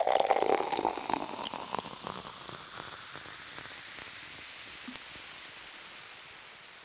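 Steady hiss of background noise, slowly fading out, with a few faint clicks in the first two seconds.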